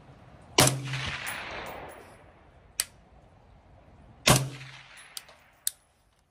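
Two suppressed rifle shots from an AR-15 short-barreled rifle fitted with a Dead Air Ventum titanium flow-through suppressor, about four seconds apart. Each shot trails off in an echo lasting about a second. A few short, sharp clicks come between and after the shots.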